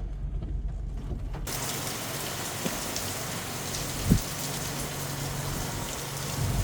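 Heavy hurricane rain falling as a steady hiss, with a low rumble underneath; the rain comes in suddenly about a second and a half in. One short thump about four seconds in.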